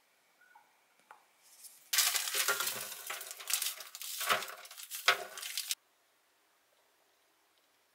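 White cleaning powder poured from a plastic zip-lock bag into a stainless-steel sink: a dense pouring hiss with scattered clicks. It starts about two seconds in, lasts nearly four seconds and cuts off suddenly.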